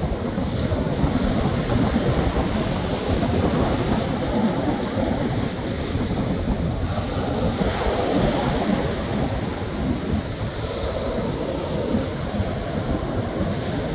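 Ocean surf washing onto the shore, with wind buffeting the microphone.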